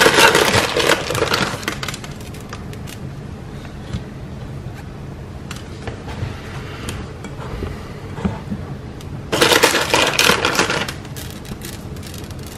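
Plastic bag of mini chocolate chips crinkling as it is handled, in two loud bursts, one at the start and one about three-quarters of the way through, with light scattered ticks between.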